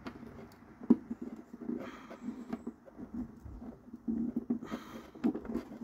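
Handling noise from a car wiring harness: scattered light clicks and knocks with short bursts of rustling as wires and spade connectors are worked onto the fuse box terminals. The sharpest click comes about a second in.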